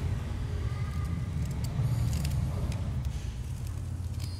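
Steel scissors scraping and snipping at the rim of a plastic pipe, a few light scattered clicks, over a steady low rumble that is the loudest sound throughout.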